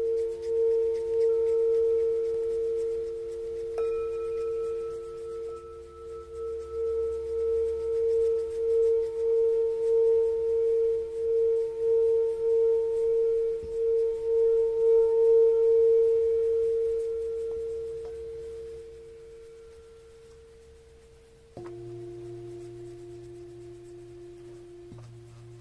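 Singing bowl ringing with a steady pulsing wobble, swelling and then slowly dying away. Near the end a new strike brings in a lower ringing note.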